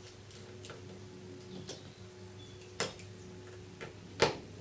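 Small scattered clicks and ticks of a Phillips screwdriver working the tiny screws out of a phone's frame. There is a sharper click about three seconds in and a louder one just after four seconds.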